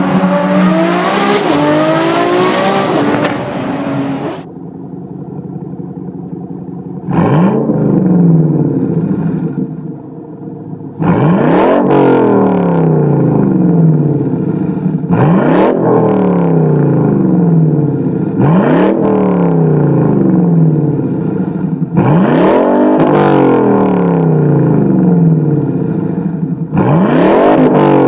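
Ferrari 599 GTO's V12 accelerating, heard from inside the cabin, its pitch rising for the first four seconds. Then a 1998 Pontiac Firebird Trans Am WS6's LS1 V8 exhaust idles and is revved in place: one rev about seven seconds in, then five sharp revs about every four seconds, each climbing quickly and dropping back to idle.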